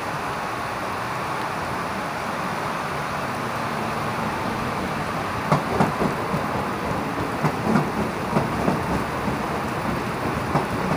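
Heavy rain falling steadily while a JR 205-series KRL electric commuter train runs past, its low hum rising as it nears. From about five and a half seconds in come irregular sharp knocks from its wheels.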